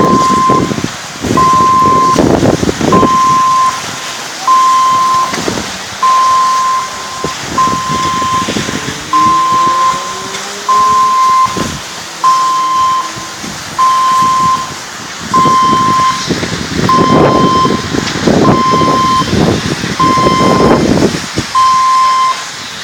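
Electronic beeper sounding a steady-pitched beep about every second and a half, over rushing noise that swells and fades.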